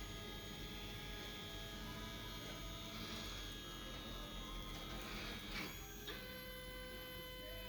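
Stepper motors of a CNC plasma table whining as the gantry moves while the job runs: a steady whine made of several fixed tones, whose pitches shift about six seconds in as the motion changes.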